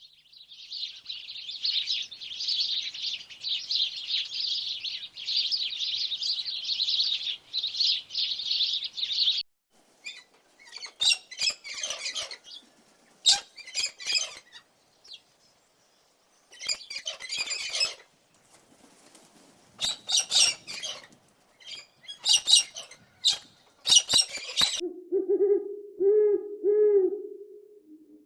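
A run of separate bird-call recordings. Dense, continuous high chirping lasts about nine seconds, then short bursts of chirps and calls come with gaps between them, and near the end there are several low hoots.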